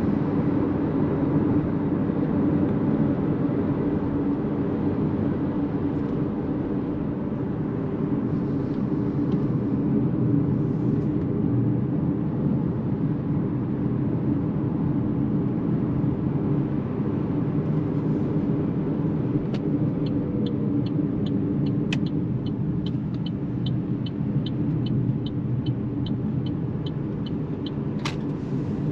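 Steady low road and tyre noise inside the cabin of an Opel Mokka-e electric car as it slows from motorway speed to around 50 km/h. In the second half a turn-signal indicator ticks about three times a second for several seconds, with two sharper clicks among the ticks.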